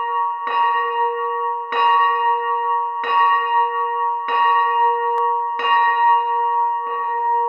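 A single church bell swinging in a steel frame, its clapper striking about once every 1.3 seconds, six strokes in all. Each stroke rings on into the next.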